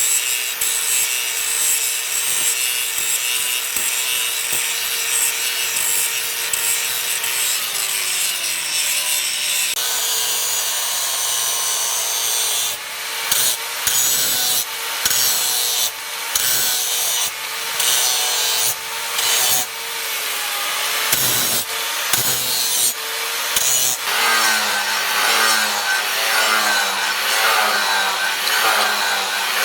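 Hand tool working wood: repeated sawing or rasping strokes, about one a second through the middle. A steady hum under the scraping drops away about eight seconds in.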